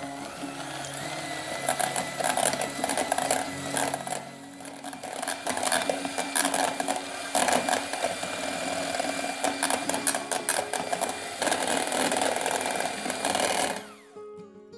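KitchenAid electric hand mixer running, its wire beaters creaming softened butter and clattering against a stainless steel bowl. It switches off suddenly near the end.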